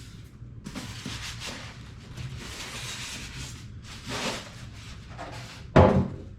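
Plastic wrapping rustling and crinkling as it is pulled off a PC case, with a single loud thump near the end.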